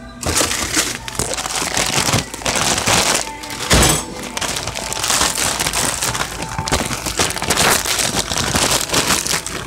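Plastic bag of frozen spinach crinkling and crackling as it is handled close to the microphone, with a knock a little under four seconds in.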